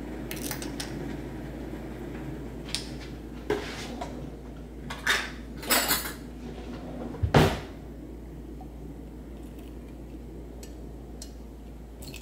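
Kitchen dishes and utensils clattering: a string of short clinks and knocks, the loudest, with a dull thud, about seven seconds in.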